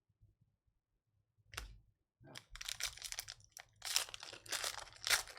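Foil trading-card pack wrapper being torn open and crinkled by hand: a short rustle about a second and a half in, then steady irregular crackling from about two seconds in.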